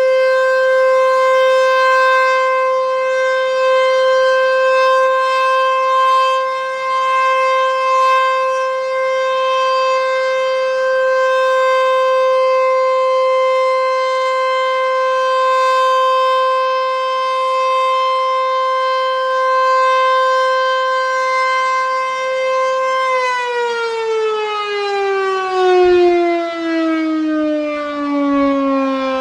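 Sentry 14V-B outdoor warning siren sounding the steady tone of its full alert signal. About 23 seconds in the tone ends and the siren winds down in a long falling pitch as its rotor slows.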